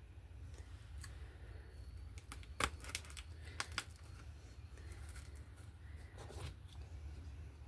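Small sharp clicks and light rustling as hands work U-shaped pins into moss to hold it down, with a cluster of clicks a little under three seconds in, and a low steady hum underneath.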